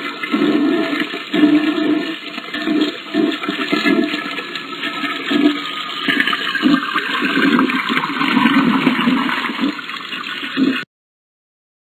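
Toilet flushing: a long rush of water with gurgling pulses as it drains, cutting off abruptly about a second before the end.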